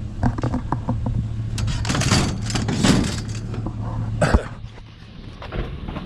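Scrap items clanking and scraping as they are shifted on a truck, over the steady hum of the idling truck engine. A loud bang like a door shutting comes about four seconds in, and after it the hum drops away and it goes quieter.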